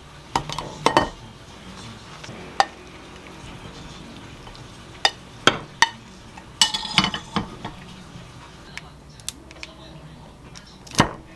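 Scattered clinks, knocks and scrapes of a metal utensil against a nonstick wok and a ceramic plate as stir-fried pork is scraped out onto the plate, with a busier run of clatter midway and one louder knock near the end.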